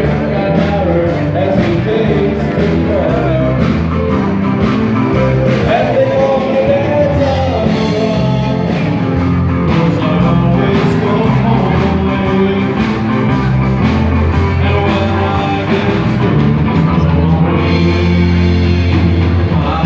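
A rock band playing live, with a singing voice over guitar, bass and a steady drum beat.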